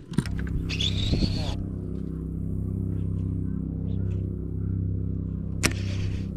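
A boat motor hums steadily and low, with a brief hiss about a second in and one sharp click near the end.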